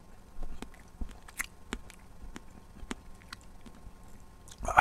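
A person chewing close to the microphone: irregular short crunches and mouth clicks. Near the end comes a loud breath.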